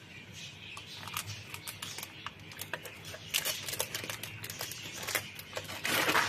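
Light clicks and taps of a metal springform cake pan and its non-stick base being handled on a wire cooling rack as the pan is taken off an upturned sponge cake. A short rustle of baking paper comes near the end as the base lifts away.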